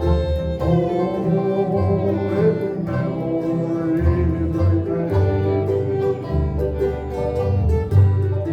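Live bluegrass band playing a slow country tune: fiddle carrying the melody over guitar and banjo, with a steady bass line.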